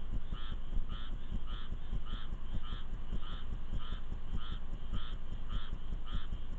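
An animal calling over and over in an even rhythm, about two short calls a second, over a steady low rumble of wind and rain.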